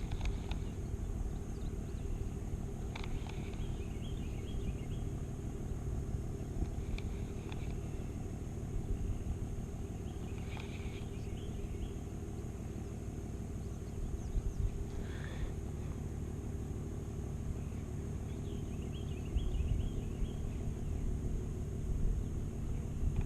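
Outdoor background noise: a steady low rumble, with a few brief high chirps now and then.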